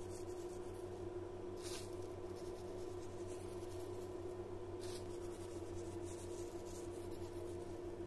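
Steady low electrical hum with two brief soft rustles, about two seconds in and again about five seconds in, as crunchy sweet crumb topping is sprinkled over a tower of glazed eclairs.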